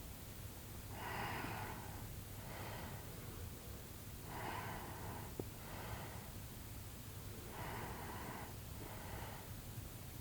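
A sleeping person breathing heavily and noisily, about one breath every three seconds, each a louder rasp followed by a softer one. There is a small tick about five seconds in.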